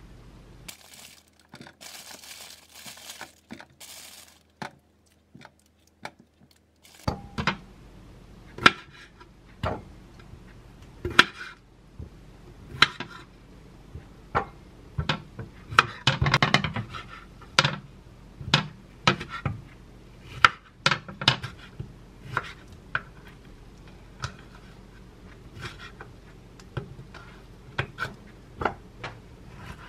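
Plastic packaging crinkling for a few seconds. After a brief quiet spell, a knife clicks and knocks on a wooden cutting board at irregular intervals while grapes are halved and figs sliced, with a denser clatter of knocks near the middle.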